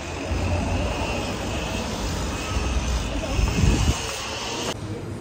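Wind buffeting a phone microphone: a heavy, fluctuating low rumble over a steady hiss, which drops away abruptly near the end.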